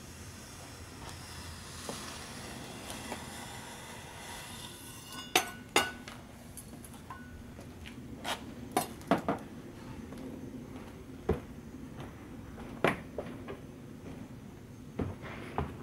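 Sharp, irregular clinks and knocks, about ten of them starting about five seconds in, a few with a short ring: a garden rake's head knocking against stone paving and pebbles as it is carried, mixed with footsteps on the stone.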